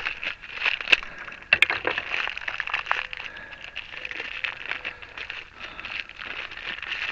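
Irregular clicking and rustling of hands handling parts, with two sharp clicks about a second and a second and a half in.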